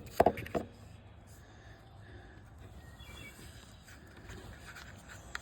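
A few sharp knocks and rustles of a camera being handled and set in place, then a quiet outdoor background with a brief faint bird chirp about three seconds in.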